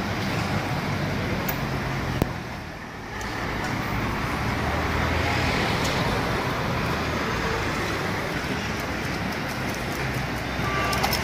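Steady city traffic noise, with a sharp click about two seconds in and a brief dip in level just after it.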